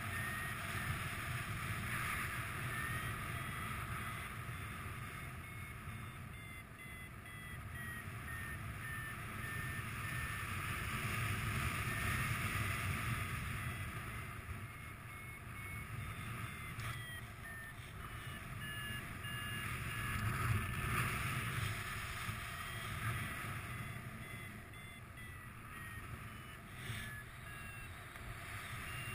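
Paraglider variometer beeping in a fast chain of short tones whose pitch rises and falls with the climb rate, the sign of the glider climbing in the cliff's lift. Steady wind rush on the microphone from the airflow runs under it.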